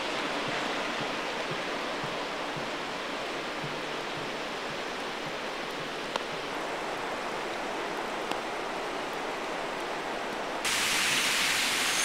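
Steady rush of running water from a river. About ten and a half seconds in it cuts abruptly to a louder, brighter splashing of a small waterfall pouring close by.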